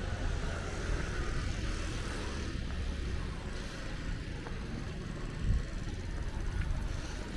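City street ambience: a steady low rumble of traffic, with a brief thump a little past halfway.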